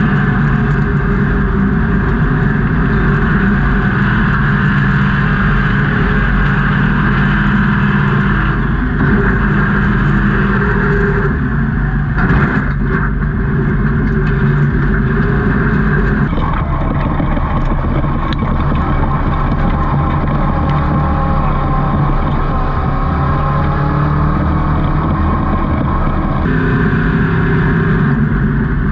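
Off-road race truck engine running hard at racing speed, a loud steady drone whose pitch and tone change abruptly a few times.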